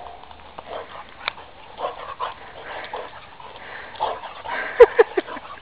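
Dogs at play making short vocal sounds, with a sharp knock and a quick run of three short yelps falling in pitch about five seconds in, the loudest part.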